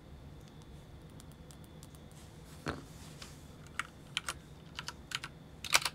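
Typing on a computer keyboard: scattered keystrokes begin a little over two seconds in and quicken into a fast run of taps near the end.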